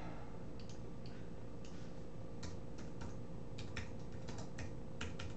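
Typing on a computer keyboard: irregular, light key clicks, faint against a steady low hum.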